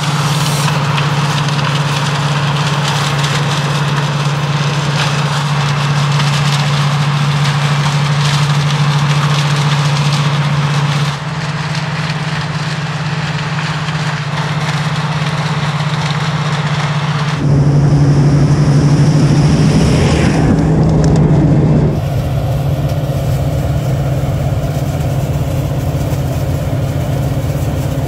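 Oxbo 9630 sweet corn harvester running steadily while picking, a constant low engine drone with machinery noise over it. The sound changes abruptly a few times, and it is loudest for a few seconds past the middle.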